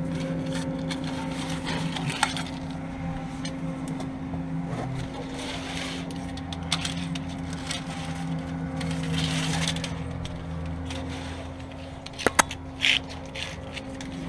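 Electrical cable being handled and fed along a truck frame: scattered scrapes and clicks of the cable and hands against the chassis over a steady low hum, with a few sharp knocks and a brief rustle about twelve seconds in.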